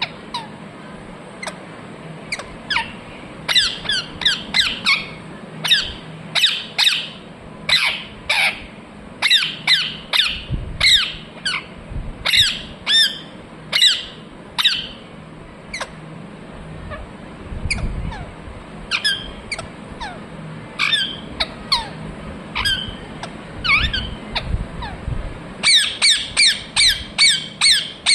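Pet parrot screeching: many short, sharp, downward-sliding calls in bursts, ending in a fast run of calls near the end.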